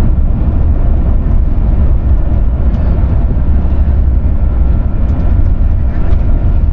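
Airbus A350 landing roll heard from inside the cabin: a steady, loud low rumble of the engines and the wheels on the runway.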